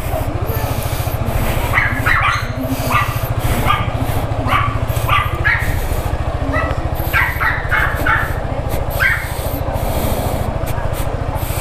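Yamaha XMAX 300 scooter's single-cylinder engine idling steadily, with a dog barking repeatedly over it.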